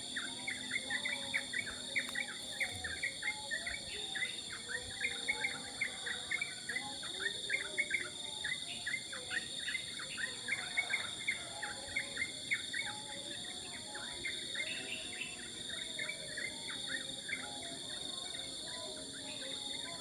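Morning chorus of birds: many rapid, repeated high chirps with fainter lower warbling notes, over a steady high-pitched drone of insects.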